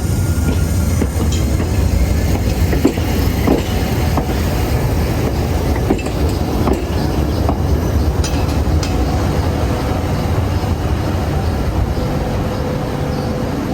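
Toden Arakawa Line streetcar running past over the level crossing: a steady low rumble with irregular sharp wheel clacks over the rail joints, easing off a little near the end.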